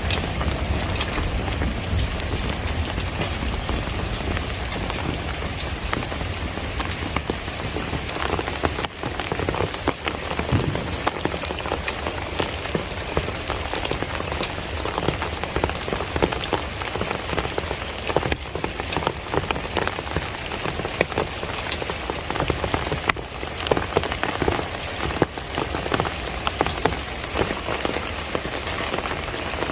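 Steady monsoon rain falling, a dense hiss with many close drops pattering and ticking on surfaces.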